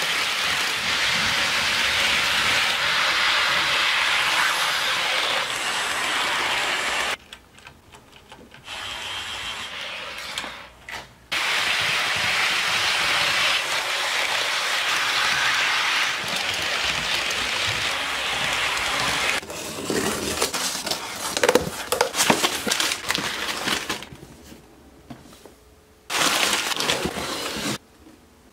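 HO scale model trains running on track, a steady rolling noise from wheels and motors that starts and stops abruptly several times. From about 19 s on, cardboard model-train boxes are handled, giving irregular rubbing and tapping.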